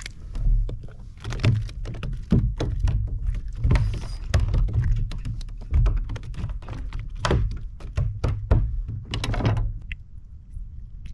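Irregular knocks, taps and thunks on a kayak as a freshly caught seatrout is handled and gear is moved about, over a low rumble.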